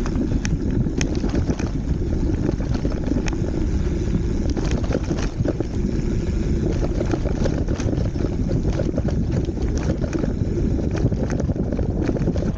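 Wind buffeting the microphone while a loaded bicycle rolls over a rough gravel road, with frequent small clicks and rattles from the tyres on loose stones and the bike's bags shaking.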